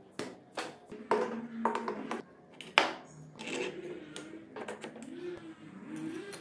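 Light metallic clicks and taps of engine parts being handled and seated in an aluminium crankcase, with one sharp click about three seconds in, over soft background music.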